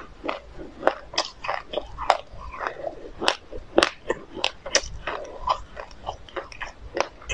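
Close-miked chewing of a mouthful of black sesame seeds and passion fruit pulp: irregular sharp crunches and wet clicks, several a second.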